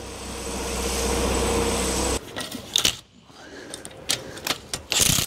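A forklift engine runs steadily for about two seconds, then stops abruptly. Scattered metallic clicks and knocks of hand tools working on the underside of the car follow.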